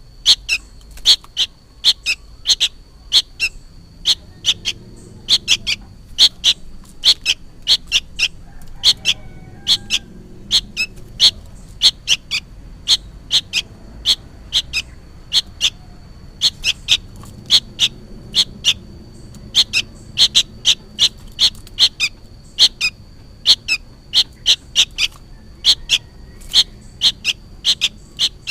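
Young sooty-headed bulbul calling over and over, short sharp high calls a few times a second in noisy runs with brief pauses, as if calling for its parent.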